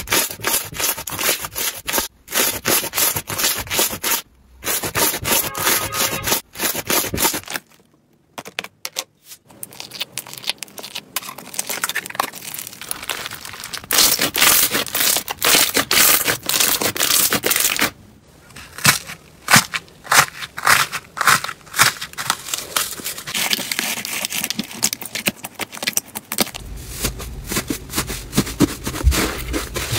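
Slime being squeezed and worked by hand, giving dense, fast crackling and popping with squishy scraping, in several stretches broken by short pauses; the longest pause comes about a quarter of the way in.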